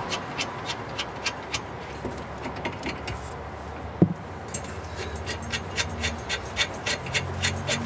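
Hand ratchet wrench clicking steadily, about three or four clicks a second, as it backs nuts off bolts. The clicking pauses near the middle, where there is a single sharp metal knock, then resumes.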